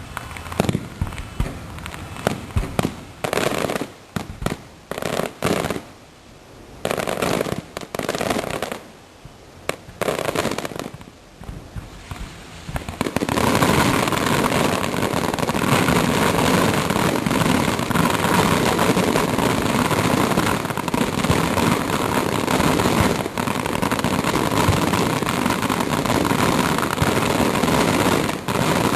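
Aerial fireworks display: separate shell bursts going off one after another for the first dozen seconds, then a dense, continuous barrage of crackling explosions.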